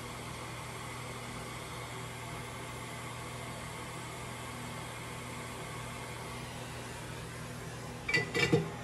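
Steady whir and hiss of a bench fan on an electronics repair bench. Just after eight seconds in there is a quick cluster of small clicks and knocks.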